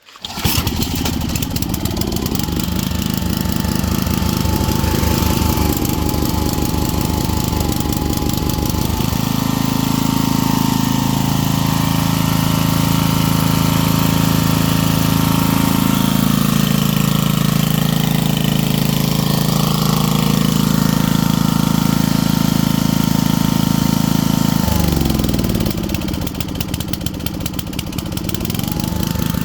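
Coleman Powermate 4000W generator's 8-horsepower engine, pull-started on choke, catches right away and runs. Its note changes about nine seconds in, then sags briefly around 25 seconds before picking back up.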